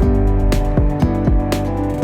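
Background music: an instrumental track with plucked-string notes over a steady beat, about two beats a second.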